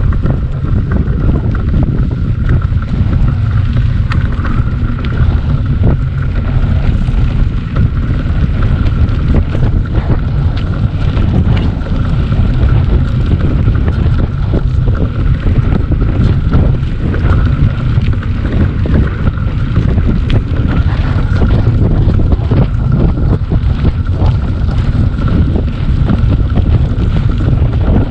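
Wind buffeting the microphone of a moving bicycle, a loud, unbroken low rumble, with a thin steady tone running above it.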